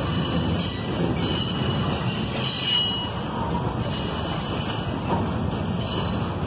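Double-stack intermodal well cars rolling past on the rails: a steady, loud rumble of steel wheels on track, with a faint high wheel squeal about two seconds in.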